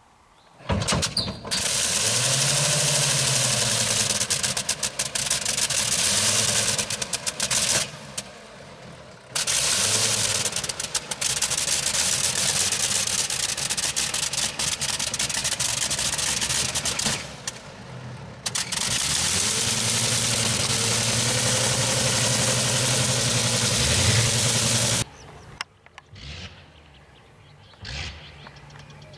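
Pfalz D.VIII replica biplane's engine starting about a second in and running loudly with its propeller, dropping away briefly near 8 seconds and again near 18 seconds, and falling to a faint distant sound after about 25 seconds.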